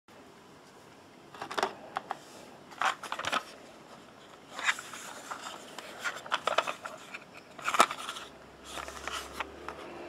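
Hard plastic toy-train display case being handled and turned over: scrapes, rustles and clicks of plastic in the hands, in irregular bursts every second or two, with one sharper click near the end.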